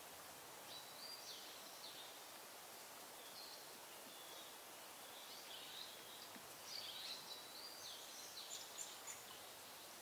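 Faint songbird song: short whistled phrases of stepped and sliding high notes, repeating and busiest in the second half, over a steady background hiss.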